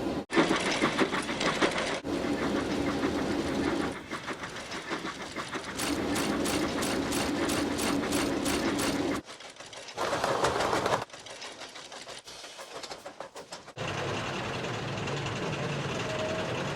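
Model-railway film sound effects of trains running on the rails: mechanical clatter in short stretches that cut in and out abruptly. A fast, regular clatter of about four beats a second runs for a few seconds in the middle.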